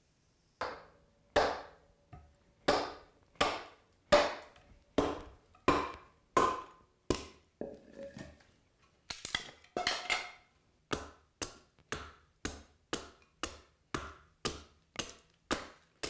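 An axe chopping into the edge of a wooden handle blank, hewing it down to a marked outline. The chops are sharp and separate, about one every 0.7 seconds at first, quickening to about two a second in the second half.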